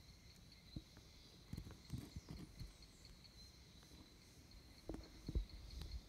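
Faint, steady high-pitched insect trill that pulses evenly, with a few soft low thumps about a second in, around two seconds in and again near the end.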